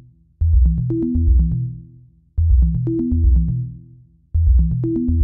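Electronic background music: a drum-machine beat with deep bass and held synth notes, looping a short phrase that starts again about every two seconds.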